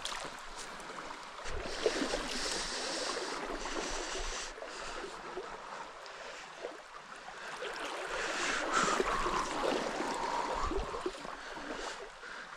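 River water running and trickling, a little louder for a few seconds about eight seconds in.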